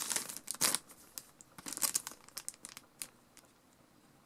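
Thin clear plastic packet crinkling as it is handled and unfolded, dense crackles in the first second, then scattered crackles that die away about three seconds in.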